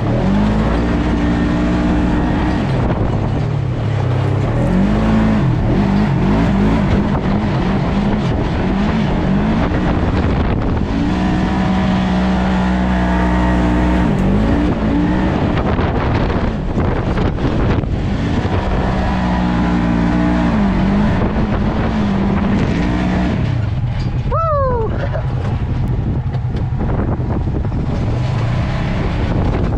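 Polaris RZR side-by-side's engine revving in repeated surges, its pitch climbing and dropping as the throttle comes on and off, over a steady rush of ride noise. A brief falling squeal comes about two-thirds of the way through.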